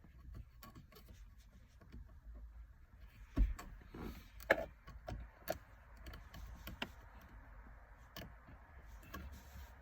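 Small scattered clicks and knocks of a replacement 3D-printed automatic shifter knob being handled and seated on the shift lever. Two louder knocks come about three and a half and four and a half seconds in, over a faint low hum.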